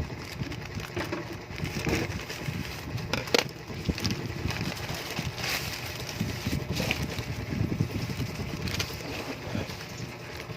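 Packaging for a tempered-glass screen protector being handled: crinkling and irregular clicks, with one sharper click about three and a half seconds in, over a steady low rumble.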